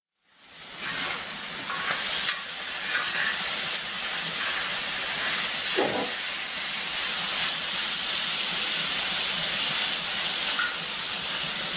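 Chicken strips sizzling in oil on a hot plough-disc griddle, a steady frying hiss that fades in at the start, with a spatula stirring and scraping the meat across the steel.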